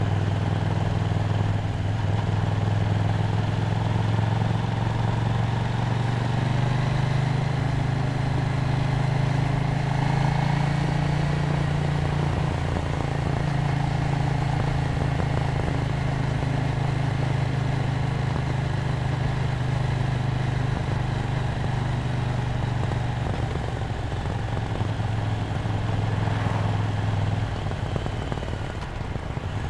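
KTM Duke 790's parallel-twin engine running steadily under way, the engine note rising a little in pitch about a quarter of the way in, holding, then easing off late with the revs dropping near the end.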